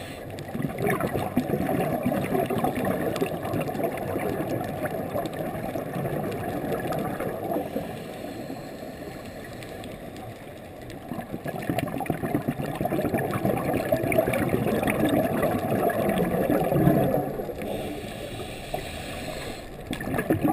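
Muffled underwater bubbling and gurgling heard through a camera's dive housing, typical of a scuba diver's exhaled regulator bubbles. It swells twice for several seconds and eases off in between.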